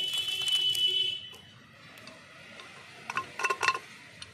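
Thick chana dal poured from an aluminium pressure cooker into a steel bowl. A high, steady squeal sounds for the first second or so, then a few light metallic clinks come about three seconds in.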